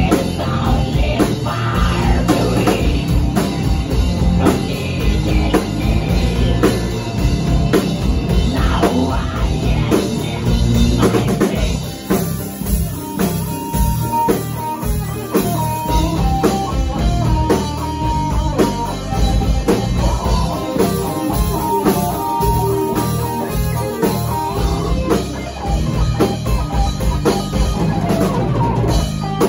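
Live rock band playing: electric guitars, bass guitar and a drum kit, with a female lead singer. About twelve seconds in, the music thins and a single melodic line carries over the band.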